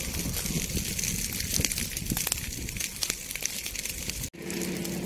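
Burning dry grass and scrub crackling, with many sharp little pops over a low rumble. Near the end the sound cuts off abruptly and a steady low hum takes over.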